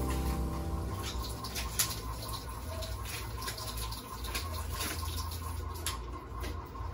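Hands handling food in a plastic bag at a kitchen counter: scattered light rustles and small clicks over a steady low hum.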